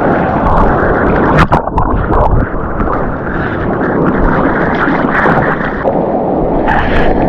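Loud rushing noise of breaking surf and wind buffeting the microphone, with a couple of sharp knocks about a second and a half in.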